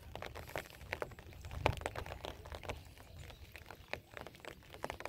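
Light rain pattering: scattered, irregular soft ticks and taps over a faint low rumble.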